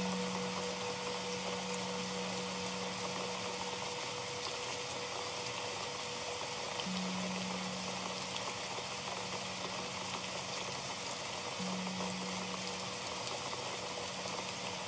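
Steady rain with a singing bowl ringing over it. A low bowl tone already sounding fades away, and the bowl is struck again about seven seconds in and once more near twelve seconds, each tone dying slowly.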